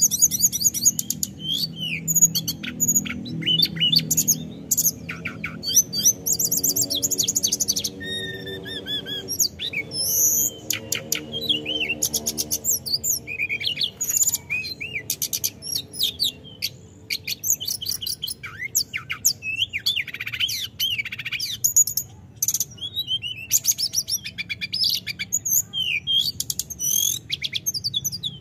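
Hill blue flycatcher singing a long, near-continuous song of rapid high trills and varied whistled notes, with only brief pauses.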